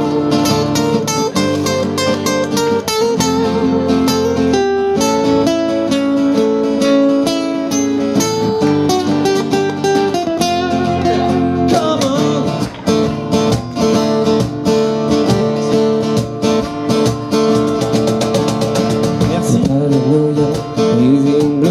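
Live music from two strummed acoustic guitars.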